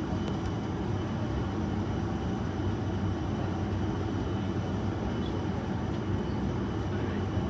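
Steady low drone of an ATR 72-600 turboprop airliner heard from inside its passenger cabin, with a faint high whine above it.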